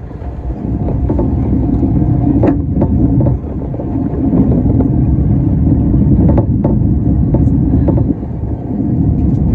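Mitake-san funicular cable car running downhill: a steady, loud low rumble, with a few sharp clicks.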